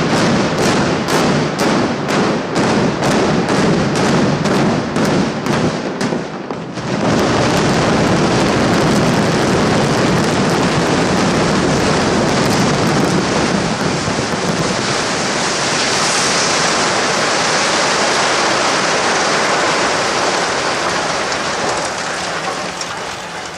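A rapid series of sharp explosive-charge detonations, about two a second, as the timed charges cut the reinforced-concrete tower's supports. About seven seconds in, a continuous loud rumble of the 20-story building collapsing and its rubble coming down takes over, slowly fading near the end.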